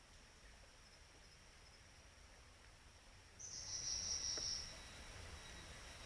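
Forest insects calling at dusk: a faint, steady high-pitched trill, joined about three and a half seconds in by a louder, harsher buzz in the same high range that lasts just over a second.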